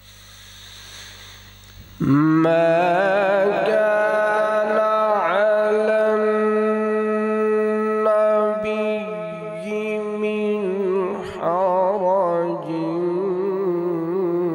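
A male qari's solo voice reciting the Quran in the melodic tajweed style into a microphone. It begins about two seconds in with a long held note, followed by more drawn-out notes with wavering ornaments.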